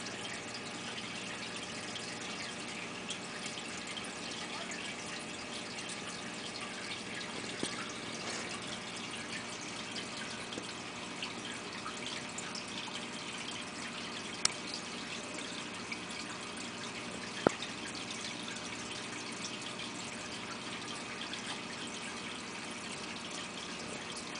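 Steady faint trickling and dripping of water, with a few sharp clicks, the loudest two a little past halfway and about two-thirds of the way through.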